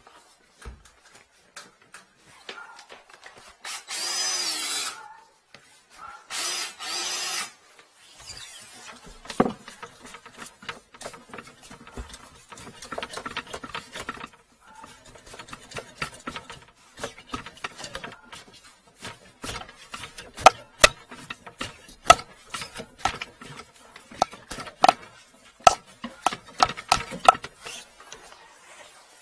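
A power tool's motor runs in two short bursts of about a second each, a few seconds in, with a whining pitch. After that come scattered knocks, clicks and rattles of tools and cable being handled under a sink.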